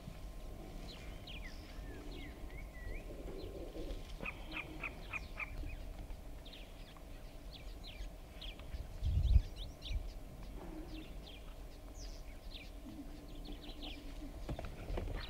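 Birds chirping, many short calls scattered throughout, over a low outdoor rumble. A brief low thump about nine seconds in is the loudest sound.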